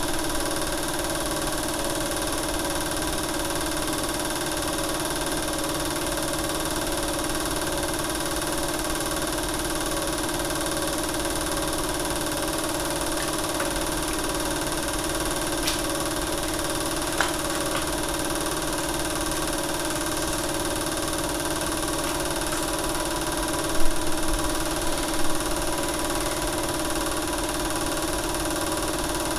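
Film projector running: a steady mechanical hum and whir of motor and film transport. A couple of brief knocks come late on.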